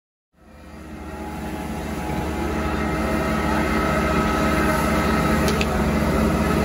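Steady low drone of a fire engine's motor running, fading in from silence over the first two seconds, with one short faint click about five and a half seconds in.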